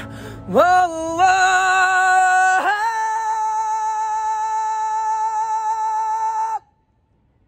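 Male singer's voice, live and unaccompanied, rising in steps into one long held note with slight vibrato that cuts off suddenly about six and a half seconds in.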